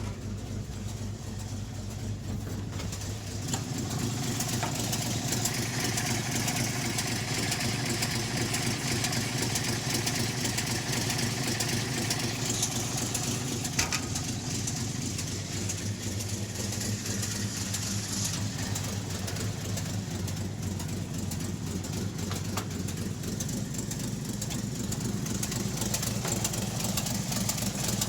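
1952 REO M35 deuce-and-a-half army truck's gasoline six-cylinder engine running steadily; it gets louder and picks up about three seconds in, then eases back a little past the middle.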